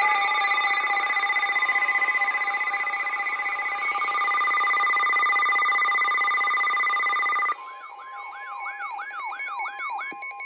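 Emergency Alert System alert tones: a loud, steady electronic tone chord at several pitches, then, about seven and a half seconds in, a quieter siren-like warble sweeping up and down about three times a second.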